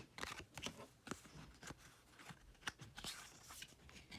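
Pokémon trading cards being handled and flipped one over another: faint, irregular clicks and rustles of card stock.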